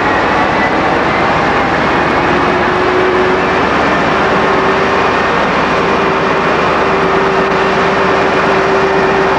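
British Rail Class 58 diesel-electric locomotive with its Ruston Paxman 12RK3ACT V12 engine running steadily and loudly. A steady whine comes in about two seconds in and holds.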